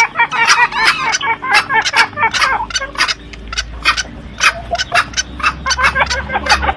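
Green junglefowl calling in quick, short, sharp notes, two to three a second and partly overlapping: a lure call recording for drawing in wild junglefowl. A faint low hum sits underneath from about halfway.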